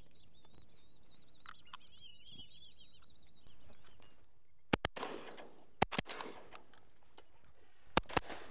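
Birds chirping and whistling for the first few seconds, then several shotgun shots at ducks flying over the blind. There is a pair of shots about halfway, three more a second later, and two more near the end, each with a short echo.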